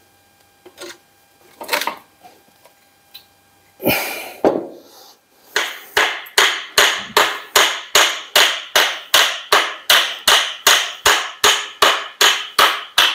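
A hammer tapping on the metal of a Ford Model T rear axle assembly, used to tap a part free during disassembly. After a few separate knocks and scrapes, steady sharp strikes start about five seconds in and keep up at about three a second.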